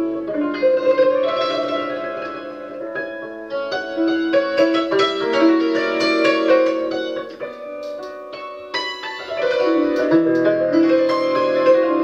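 1987 Bohák concert cimbalom played with hammers: quick runs of struck notes that ring on and overlap, with lower bass notes joining about ten seconds in.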